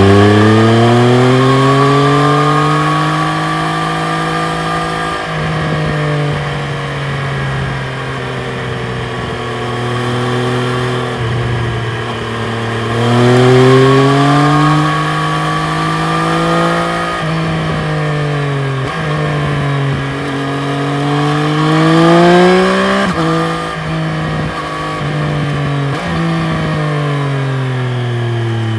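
Triumph Street Triple RS's 765 cc inline three-cylinder engine under way, its pitch rising repeatedly under acceleration and dropping in sudden steps at gear changes. In between it falls away as the rider rolls off the throttle.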